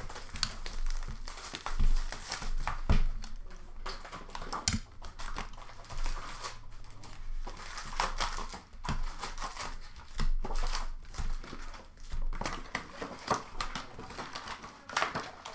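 Foil hockey card packs and cardboard hobby boxes being torn open and handled: continuous crinkling of wrappers with frequent sharp rips and rustles.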